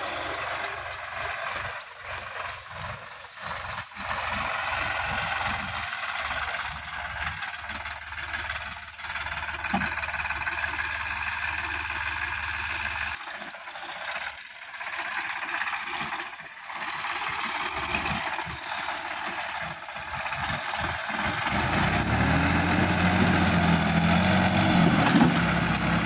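Sonalika DI 50 RX tractor's diesel engine running under heavy load as the tractor drags its rotary tiller through deep paddy mud. The engine note grows louder and deeper over the last few seconds as it labours.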